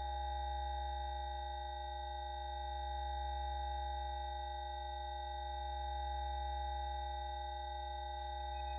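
Background music: a held electronic chord of several steady tones over a deep low drone, unchanging throughout.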